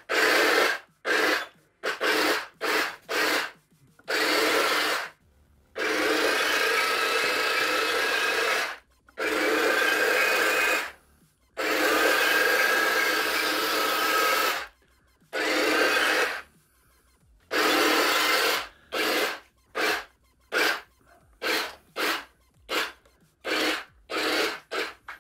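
Electric drive motors and plastic gearboxes of a 1/16 RC Tiger tank whining as it moves across a wooden floor in stop-start runs. There are short bursts at first, several runs of two to three seconds in the middle, and a string of quick short bursts near the end.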